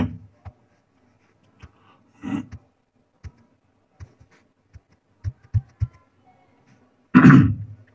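Pause in a man's talk: scattered faint clicks and soft low taps, several in quick succession a little past the middle, with a short spoken sound near the end.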